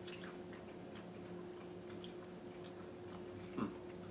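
Quiet chewing and biting of crisp wafer sticks, faint small crunches over a steady low hum. About three and a half seconds in, a short, louder sound rises and falls in pitch.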